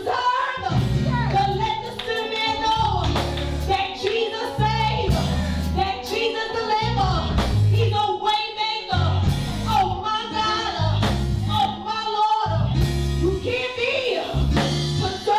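A woman singing gospel into a microphone over live instrumental accompaniment with a steady, rhythmic bass line, her voice holding and bending long notes.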